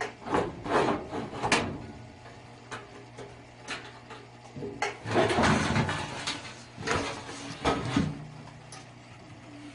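Knocks, scrapes and rattles from something being handled, in a burst near the start and a longer burst around five to eight seconds, over a steady low hum.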